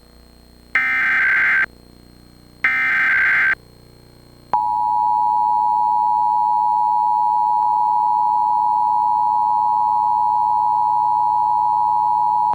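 Emergency Alert System SAME header: two short bursts of harsh digital data tones, each just under a second long. About a second later comes the EAS two-tone attention signal (853 and 960 Hz together), a steady dual-tone alarm held for about eight seconds. Together they open a Required Monthly Test.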